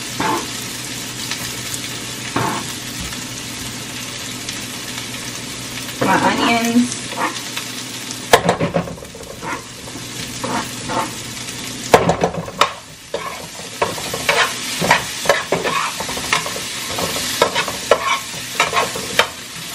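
Sliced bell peppers and onions sizzling in a hot frying pan, with a utensil scraping and clacking against the pan as they are stirred. The stirring starts sparse, then grows busier from about halfway through, with a couple of sharper knocks.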